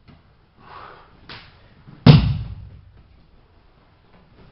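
A person thrown down onto the dojo's mats, landing with one heavy thud about two seconds in. Fainter scuffs and a light knock come before it.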